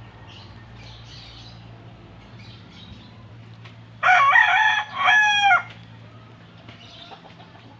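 A rooster crowing once, about four seconds in. The crow lasts about a second and a half, with a brief break in the middle.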